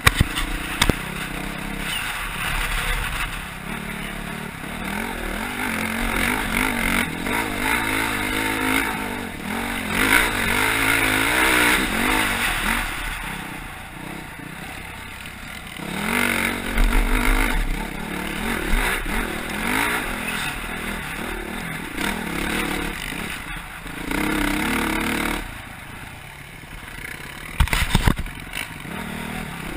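Dirt bike engine running while riding a dirt trail, its pitch rising and falling as the rider works the throttle, under steady wind rush on the microphone. A few sharp knocks come near the end.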